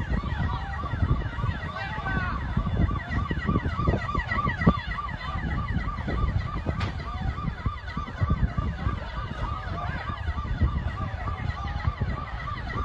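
Emergency-vehicle siren sounding in quick repeated pulses, about three a second, over a heavy low rumble.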